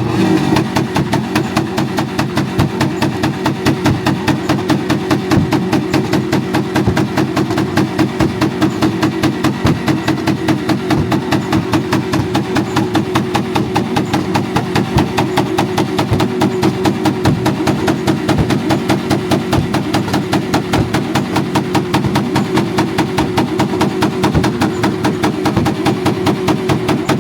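A Honda Civic and a Nissan GT-R held together on their two-step launch limiters: a steady, rapid stutter of ignition-cut pops and bangs from the exhausts, several a second, over the engines' drone held at one pitch.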